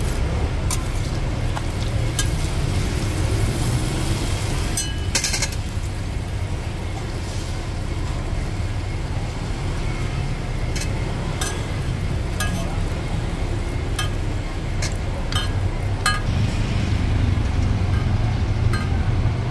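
Steady road-traffic rumble, with sharp metal clinks and taps of a spatula on a steel roti griddle scattered through it.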